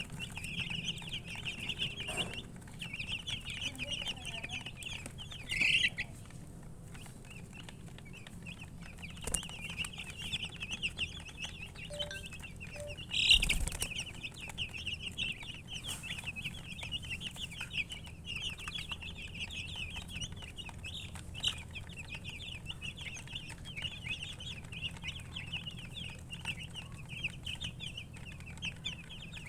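A group of baby chicks peeping, many short high-pitched cheeps overlapping continuously, with a brief lull about seven seconds in. About thirteen seconds in there is a single louder thump.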